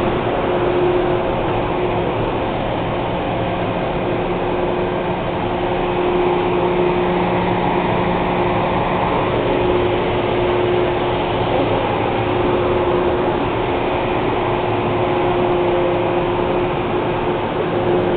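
Steady hum from Metro-North M3-A electric multiple-unit railcars, heard close to the car side, with several steady tones that hold their pitch.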